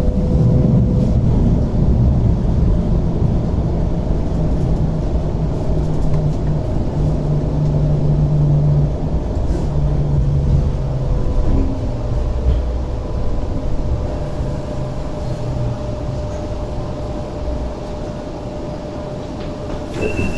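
Hong Kong Light Rail car running, heard from inside: a steady low rumble of wheels on track with a motor hum. It eases over the last few seconds as the car slows into the stop.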